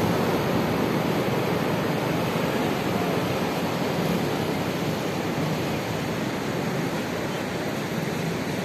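Surf breaking and washing up a flat sandy beach: a steady, even hiss of waves with no single crash standing out.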